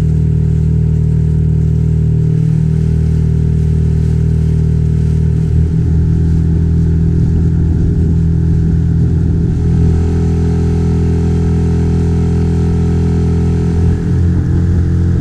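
Outboard motor of a small inflatable RIB running steadily under way, its note shifting slightly a couple of times.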